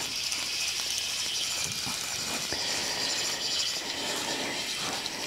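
Inline ice-fishing reel cranked fast, giving a steady whir as the line and a hooked yellow perch are wound up.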